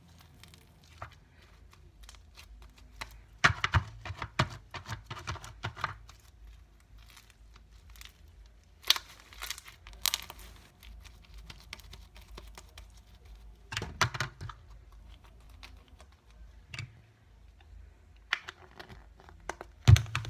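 Hands squeezing and stretching butter slime with foam beads: sticky clicks, pops and crackles that come in clusters, a few of them sharp and loud.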